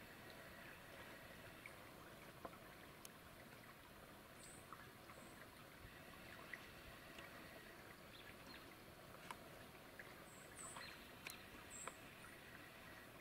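Near silence: faint outdoor ambience with scattered small ticks and a few brief, faint high chirps.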